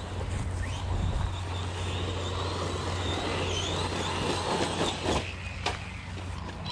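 Losi Lasernut RC truck's brushless electric motor whining, rising and wavering in pitch as the throttle is worked, over a steady rushing noise, with two sharp knocks about five seconds in.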